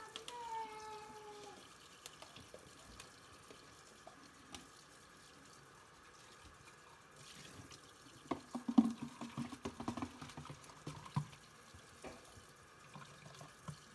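Quiet handling and rustling of a paper towel being wiped over a face and folded, with a short falling hum at the start. A louder spell of rubbing and knocks comes about eight seconds in.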